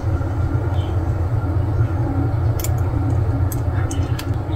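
A few small, sharp clicks of a plastic Nendoroid figure's parts being handled and fitted together, over a steady low rumble.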